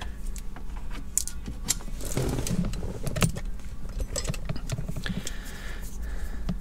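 Scattered light metallic clicks and clinks as a magnetic pickup tool fishes for a small dropped part around the base of a Hurst shifter.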